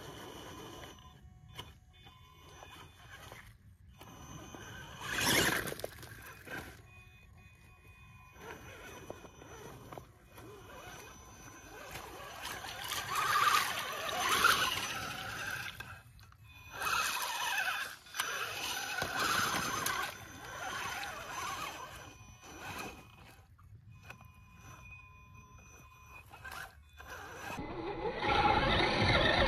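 Radio-controlled Axial Wraith rock racer driving through a shallow muddy creek: its motor runs in uneven surges while its tyres churn and splash through water and mud. The sound is loudest when the truck passes close by in the water, and again near the end.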